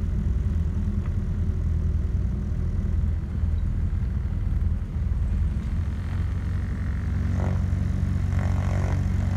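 Britten-Norman Islander's piston engine running at low power with its propeller turning, heard from inside the cabin as the aircraft taxis after landing: a steady low drone.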